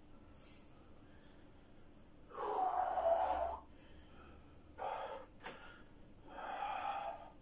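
A man breathing hard with exertion: three loud, breathy exhalations, the first and loudest about two seconds in and lasting over a second, the others shorter and a second or two apart.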